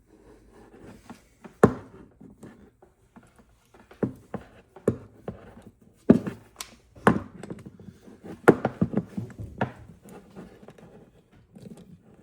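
Irregular clicks, taps and knocks of hands handling and threading fittings onto a compressor tank's drain valve, with several sharper knocks among them.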